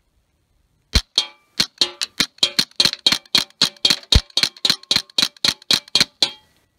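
Winchester Model 74 semi-automatic .22 Short rifle firing a rapid string of about twenty shots, some four a second, starting about a second in and stopping abruptly near the end.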